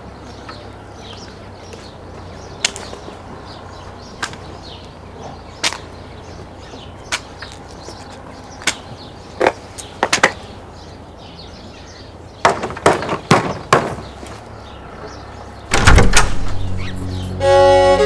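Slow, evenly spaced footsteps, then a quick run of knocks on a wooden door, then the door being opened with a heavy thud, the loudest sound. String music with a violin comes in just before the end.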